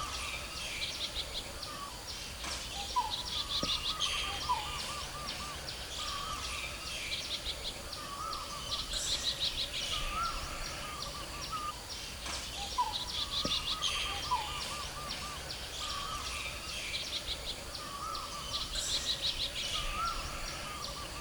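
Birds calling outdoors: short wavering whistled notes and bouts of rapid high trills, coming back every few seconds over a steady background hiss.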